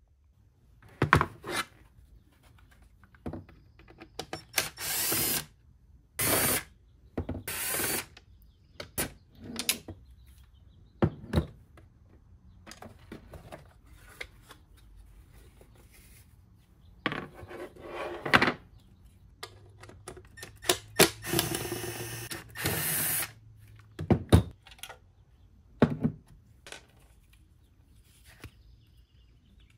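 Cordless impact driver running in short bursts, backing out the screws that hold an old rear speaker in its housing. Plastic clicks and knocks come between the bursts as the parts are handled, and one longer run of the driver falls a bit over three-quarters through.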